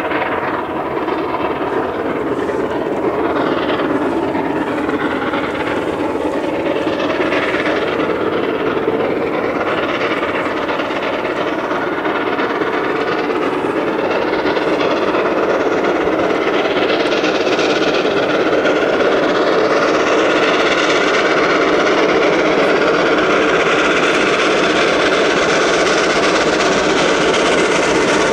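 Three-cylinder LMS Royal Scot class steam locomotive 46115 'Scots Guardsman' working a train under steam. Its exhaust and running noise grow steadily louder as it approaches.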